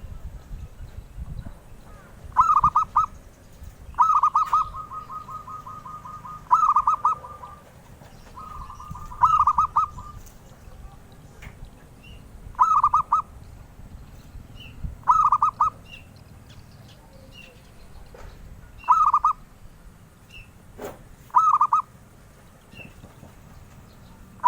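Zebra dove (perkutut) cooing: short phrases of rapid pulsed coos repeated every two to three seconds, a couple of them stretched into a longer rolling series of coos.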